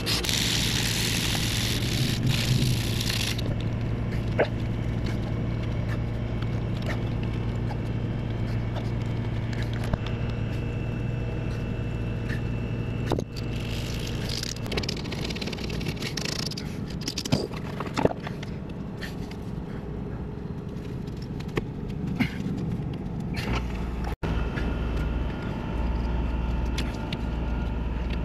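Brazing torch burning with a steady rushing noise while a copper joint on a liquid line filter drier is brazed, with a brighter hiss for the first three seconds or so and scattered light clicks and knocks.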